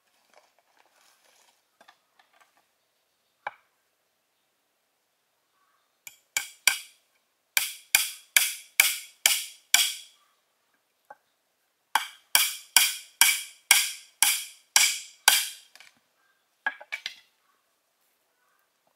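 Regular blows of a tool on bamboo, each with a short hollow ringing decay, in two runs of about eight strikes at roughly two a second, with a few single knocks before, between and after.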